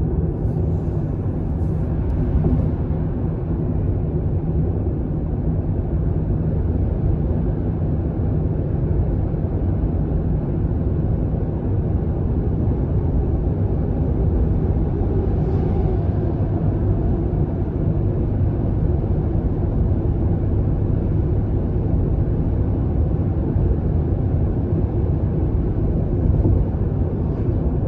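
Steady road and tyre noise with engine hum heard inside a car's cabin at expressway speed, mostly deep in pitch.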